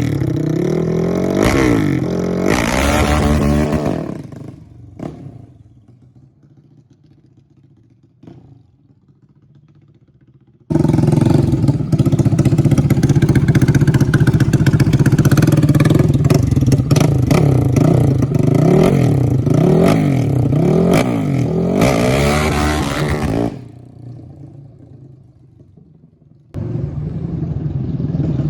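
Yamaha Raptor 700R quad's engine being ridden hard, revving up and down over and over. It comes in three loud stretches that start and stop abruptly, with quieter gaps between them.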